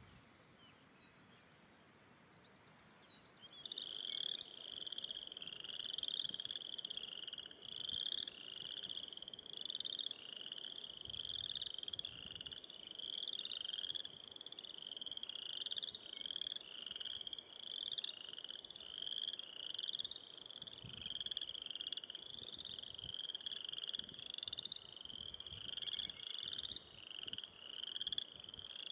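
A frog calling over and over: short, high-pitched trilled calls repeating a little more than once a second, starting a few seconds in.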